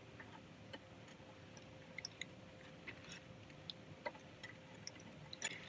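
Faint, scattered small clicks and taps of screws and a metal mounting bracket being handled and fitted to a media player, with a faint steady hum underneath.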